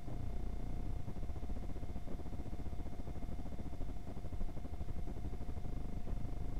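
Steady low rumble and hiss with a faint constant electronic whine: the action camera's own recording noise, with no real sound from the scene captured.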